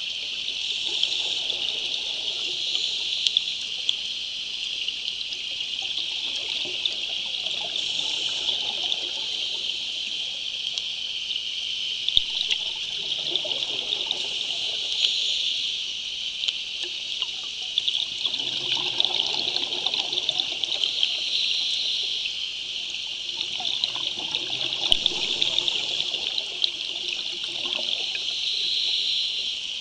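Underwater ambience: a steady high hiss with fine crackle, and roughly every five or six seconds the gurgle of a scuba diver's exhaled bubbles rising past.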